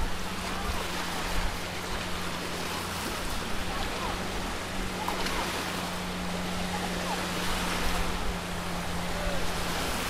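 Small waves breaking and washing up on a sandy shore, with wind rumbling on the microphone and a faint steady low hum underneath.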